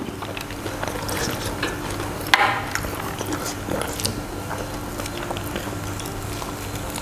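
Sausage corn dogs being bitten and chewed close to a clip-on microphone: scattered short crackles and mouth sounds.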